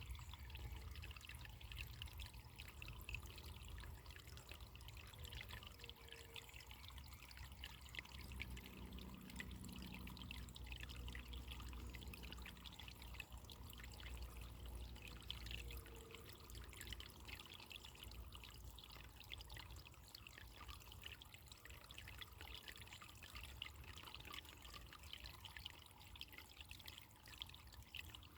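Faint running water trickling and splashing steadily, over a low steady rumble.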